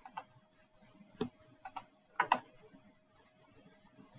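A few scattered clicks and knocks, about six in all, the loudest a close pair a little past two seconds in, over a faint steady hum.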